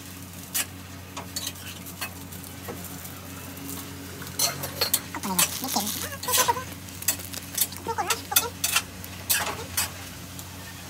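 A cooking utensil stirring and scraping in a frying pan of sizzling food, with a quick run of scrapes and clinks from about four seconds in. A steady low hum sits under it.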